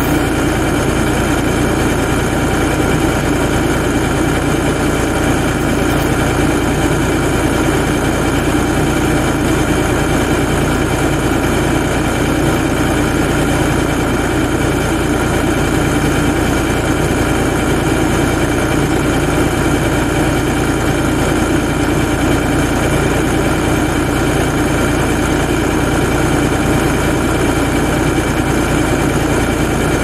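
LS compact tractor's diesel engine idling steadily.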